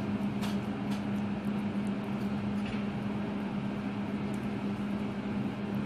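Steady mechanical hum in a kitchen, with a few light scrapes of a fork spreading mashed aubergine across a plate in the first few seconds.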